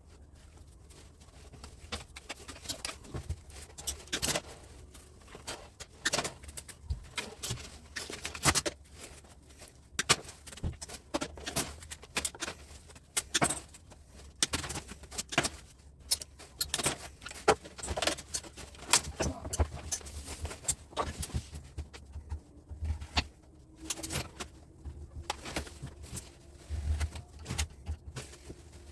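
Rusty knife stripping insulation off copper wire by hand: irregular scrapes and clicks of the blade and the wire.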